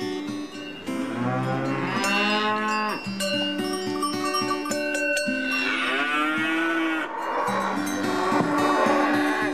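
Cattle mooing: two long moos, about a second in and again about halfway through, over soft plucked-string background music.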